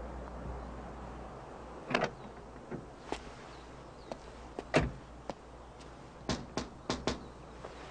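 A few scattered clicks and thumps, the loudest about five seconds in, then knocking on a wooden front door: four quick raps near the end.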